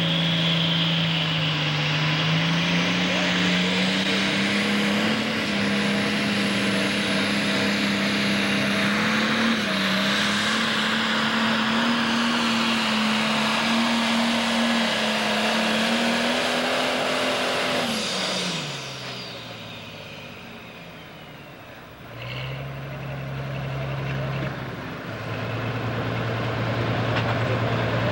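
A Pro Stock pulling tractor's diesel engine running flat out under load, its pitch creeping up over about eighteen seconds, then winding down as the pull ends. After a few quieter seconds, a tractor engine runs steadily at a low, even pitch.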